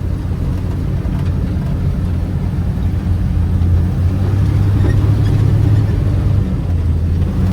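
Snowcat engine running steadily as the tracked machine drives, a low drone that gets a little louder about four seconds in.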